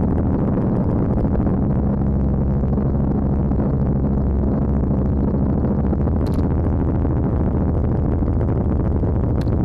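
Helicopter engine and rotor running steadily in flight: a loud, even, low drone.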